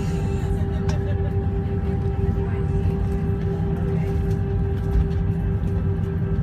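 Jet airliner cabin noise: a steady low rumble of the engines and air systems with a constant droning hum over it.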